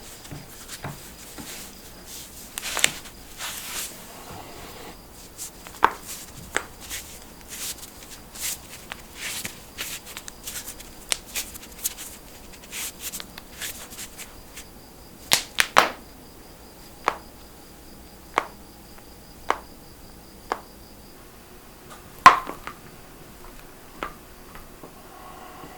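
Joints cracking during self-adjustment: a string of sharp pops and clicks. A quick cluster of pops comes about fifteen seconds in, then single pops follow about a second apart, the loudest a little after twenty-two seconds.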